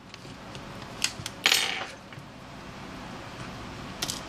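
A smartphone's back panel being unclipped and pulled off by hand: light clicks about a second in, a short louder scrape around a second and a half, and a few more clicks near the end.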